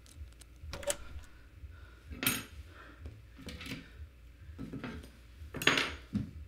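A series of hard clinks and clatters, like dishes or metal utensils being handled. The loudest come a little over two seconds in and near the end.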